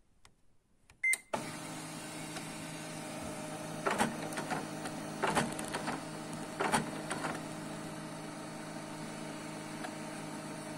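HP LaserJet Pro MFP M127fw laser printer beeping once, then running its paper-feed motor with a steady whir. Three clacks come about a second and a half apart as the pickup roller turns but fails to grip the sheet. The owner blames a worn, smooth rubber pickup roller that slips over the paper.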